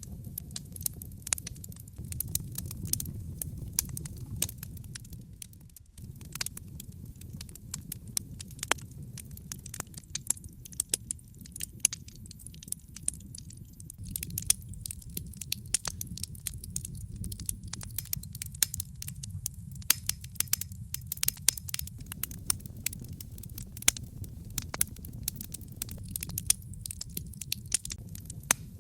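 Logs burning in a fireplace, crackling with frequent sharp pops and snaps over the low, steady rumble of the flames.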